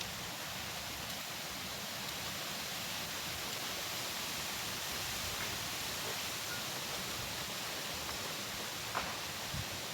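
Wind in leaves and trickling water making a steady, even hiss, with a light tap about nine seconds in.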